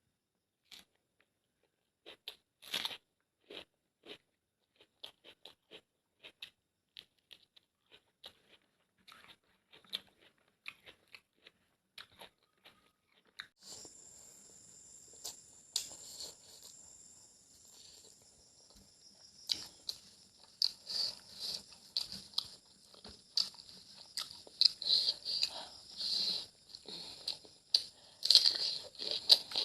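A person chewing a mouthful of egg and potato curry with rice close to the microphone: a run of short, wet mouth clicks and smacks. These are sparse at first and come thicker and louder in the second half, when a steady high hiss also comes in.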